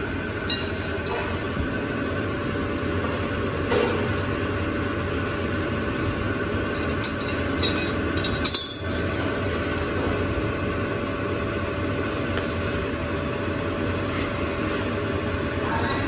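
A steady machine drone with several held tones runs throughout, over which powder-coated metal motorcycle parts clink lightly a few times as they are picked up and handled, mostly around the middle.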